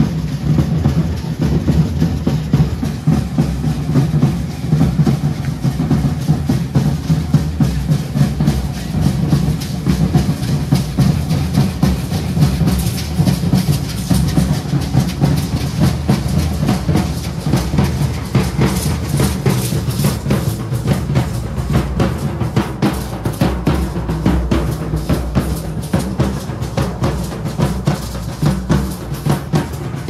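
Drum beaten in a fast, steady, unbroken rhythm for a matachines dance, with the dancers' hand rattles shaken along with it.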